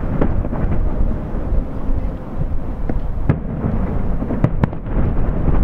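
Aerial firework shells bursting overhead, a continuous low rumble of booms with sharp cracks just at the start, about three seconds in, and twice in quick succession near the end.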